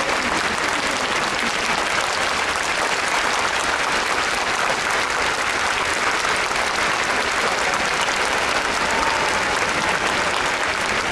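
Large audience applauding steadily, an even wash of clapping with no break.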